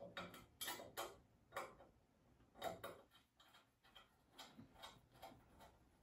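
Faint, irregular clicking as a small Phillips screwdriver turns tiny screws into the lamp's aluminum track pieces.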